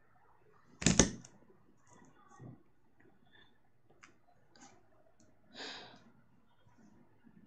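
A loud sharp click or knock about a second in, followed by a few faint clicks and taps and a brief soft rustle near the end, all small handling noises at a desk.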